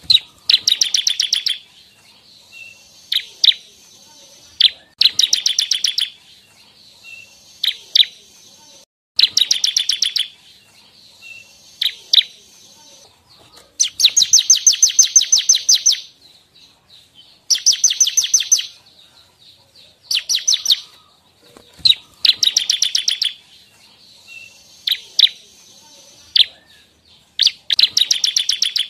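Bar-winged prinia (ciblek) singing: repeated fast, rattling trills of high notes, each lasting one to two seconds, with short single chips between them. The longest and loudest trill comes about halfway through.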